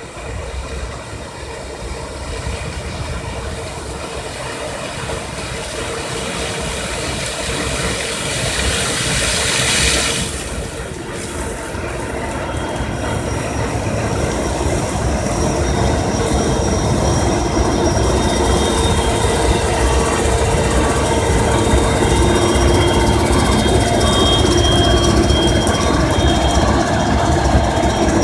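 Claas Lexion 480 combine harvester working in a corn crop: a steady mechanical din with a hum and high whining squeals from its drives, getting louder as it comes closer. A brief hissing swell comes about ten seconds in.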